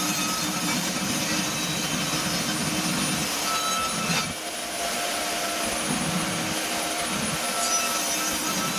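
Electric woodworking power tool running steadily while cutting or working wood, with a brief dip in level about four seconds in.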